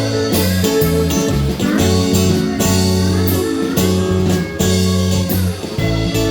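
Country band playing an instrumental break: a lead guitar solo with bent, sliding notes over bass and a steady drum beat.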